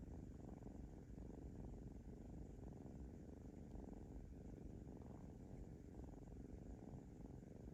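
Kitten purring, a faint, steady low rumble without a break.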